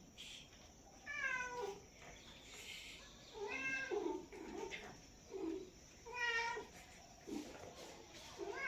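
Domestic cat meowing repeatedly, a meow every two to three seconds, the first one falling in pitch, with softer short sounds between the meows.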